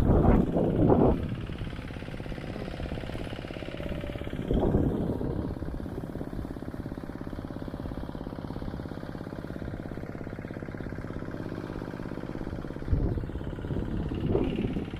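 Hand tractor engine running steadily while ploughing the paddy, with a few louder bursts near the start, about four and a half seconds in, and near the end.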